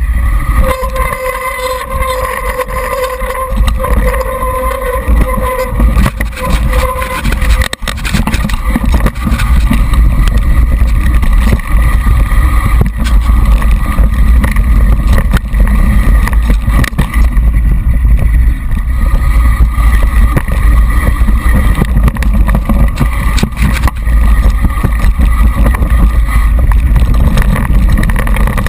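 Mountain bike riding fast down a rough, dry trail, heard from a camera clamped to the seatpost: constant clattering and rattling of the bike over the ground, with a heavy rumble of wind and tyre noise. A steady buzzing tone runs through the first seven seconds or so, then gives way to the rattle.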